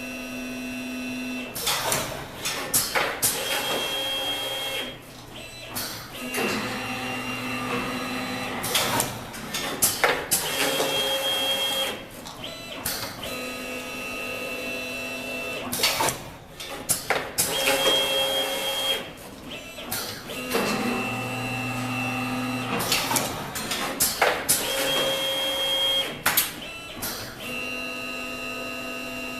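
TBC-1050FK automatic cutting machine running through its clamp, pull, cut and stack cycle, repeating about every seven seconds. Each cycle has a steady motor hum, then a cluster of sharp clicks and clacks, then a hiss.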